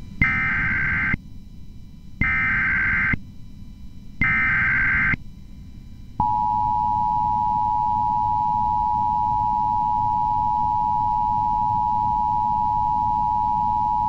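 Emergency Alert System tones: three short bursts of screeching digital SAME header data about a second apart, then a steady two-tone attention signal held for about eight seconds, announcing a Civil Danger Warning.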